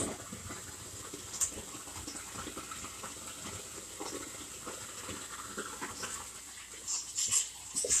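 Shotcrete being sprayed from a hose nozzle onto rebar and mesh: a steady, fairly quiet hiss with irregular spattering, and a few louder pulses near the end.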